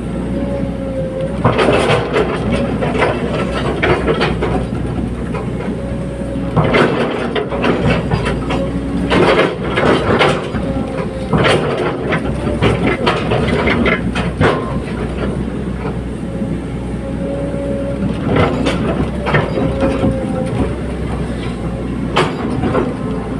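Hydraulic excavator working: the diesel engine runs steadily under a constant hydraulic whine. Bursts of metal clanking and rattling come about six times, the busiest between about 9 and 15 seconds in.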